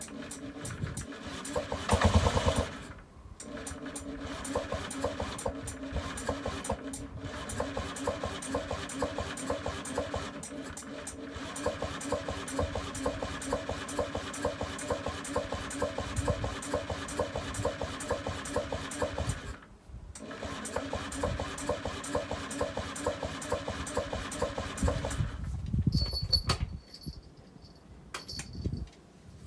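Small moped scooter engine running with a fast, even beat, briefly dipping a few times, then stopping about 25 seconds in.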